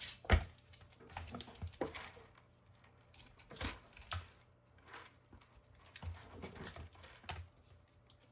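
Kittens scrambling and play-fighting in a wire cage: irregular taps, thumps and scratches of paws on the floor, the shelf and the wire mesh, with one sharp knock about half a second in.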